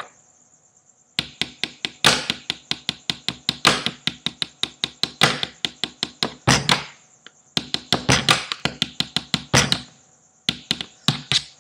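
Pen tapping: pens drummed on a hard surface in a fast rhythm of sharp clicks and taps, several a second. It starts about a second in and pauses briefly twice.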